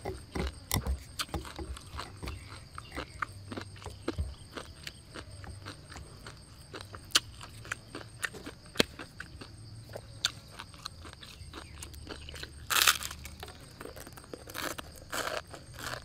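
Close-up crunching and chewing of dry, uncooked noodles: a dense, irregular run of short crisp cracks, with one louder, longer crackle near the end.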